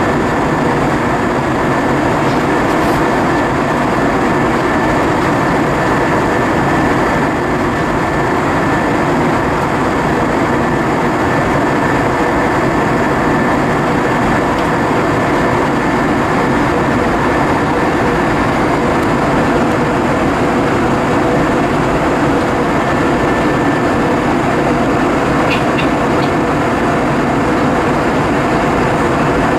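Cabin noise inside an Airbus A320-232 airliner: a steady rushing of air and engine noise with a faint constant hum and a thin high whine, unchanging throughout.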